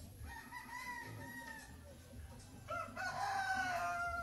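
Rooster crowing twice: a fainter crow in the first second or so, then a louder, longer crow starting about two and a half seconds in, held and falling slightly in pitch.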